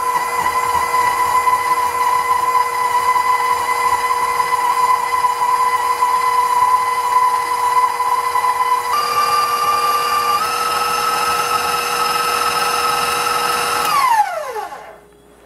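KitchenAid Professional 600 stand mixer running, its flat beater creaming butter, sugar and shortening in the steel bowl: a steady motor whine that steps up in pitch twice in the second half, then winds down and stops near the end.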